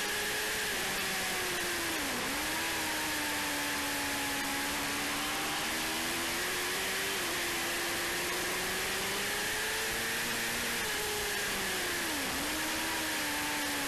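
Motorcycle engine running at speed, heard onboard under a heavy steady rush of wind over the microphone. Its note slowly rises and falls, dipping sharply and recovering twice.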